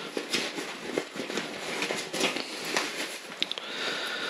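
Fabric backpack being handled: nylon rustling and crinkling, with scattered light clicks and taps.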